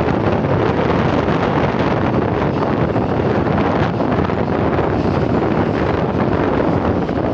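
Wind rushing steadily over the microphone of a moving vehicle, with road and traffic noise underneath.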